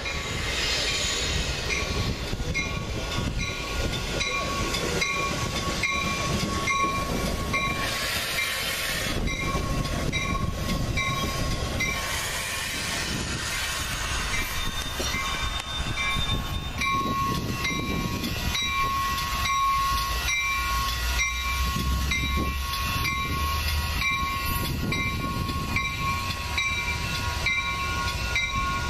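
Metra diesel commuter train of bilevel gallery cars passing close by, its wheels and cars rumbling steadily over the rails. Grade-crossing warning bells ding at an even beat throughout.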